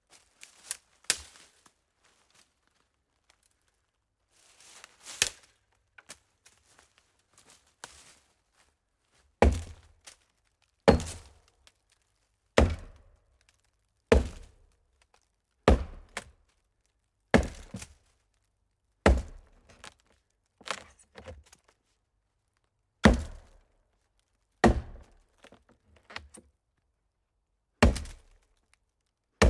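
Axe chopping into a hollow tree trunk: a few light knocks at first, then from about a third of the way in a steady run of about a dozen heavy, hollow-sounding blows, roughly one every second and a half.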